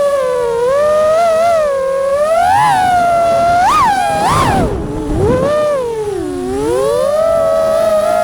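FPV quadcopter motors and propellers whining, the pitch sweeping up and down with the throttle. About halfway through there is a quick climb in pitch, then a rushing sound as the throttle drops low, and the whine rises again.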